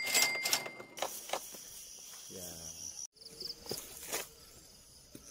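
Night insects, likely crickets, chirping in a steady high-pitched drone with short pulsed chirps, broken by a few sharp clicks in the first second.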